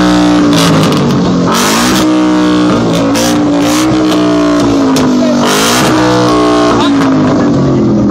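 Ford Mustang GT's 5.0 V8 being revved hard through its loud exhaust: the revs climb, hang high with several quick dips and blips, then fall away near the end. A few short noisy bursts sit over the engine.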